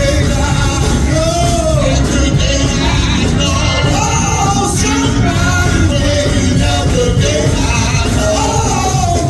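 Live gospel music: a band with heavy bass and drums under voices singing.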